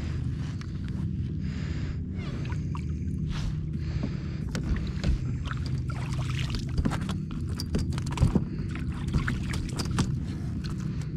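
A hooked fish splashing at the surface beside a kayak as it is reeled in and swung aboard, with scattered clicks and knocks from rod, reel and hull, loudest in the second half. A steady low rumble runs underneath.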